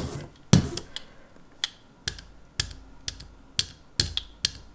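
Rubber brayer rolling block-printing ink back and forth on a clear inking slab and onto a lino block, with sharp clicks about twice a second.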